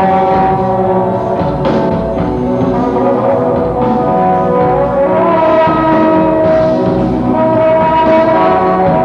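Loud live band music with long held, overlapping notes over a steady low end.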